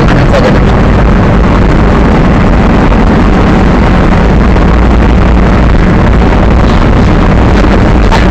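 Monster truck engine running steadily while the truck drives, heard from inside the cab, loud enough to nearly saturate the recording.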